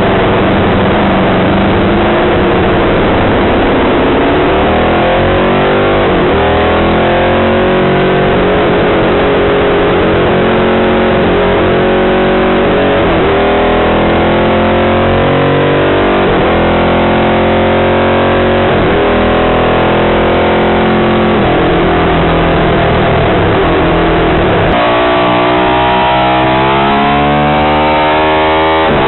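Short-stroke Ducati 750 Imola-replica racer's 90-degree bevel-drive V-twin heard from onboard, revving; its pitch climbs and falls back again and again as the bike is ridden out onto the circuit.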